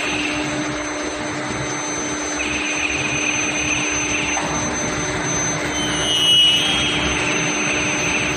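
Square steel pipe induction hardening machine running: steady machine noise with a constant low hum and a thin high whine. A higher sound swells in for about two seconds at a time, roughly every three seconds, and is loudest about six seconds in.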